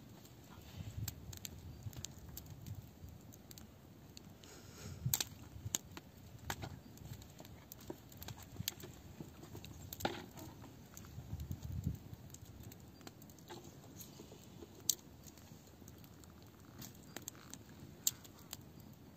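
Sparse crackles and sharp snaps of dry twigs around a small campfire of straw and sticks, scattered irregularly over a faint low rumble.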